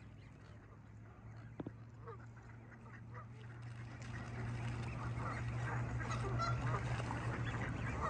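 A mixed flock of Canada geese and mallards calling on the water, many overlapping honks and quacks that grow louder and busier about halfway through.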